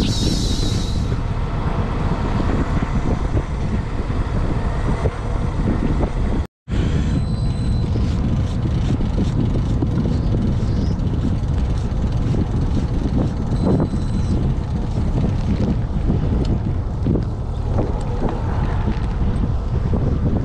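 Wind buffeting the microphone over the low, steady running of a fishing boat's engine. A short high-pitched edit sound effect comes in the first second, and the sound drops out for a moment about a third of the way in.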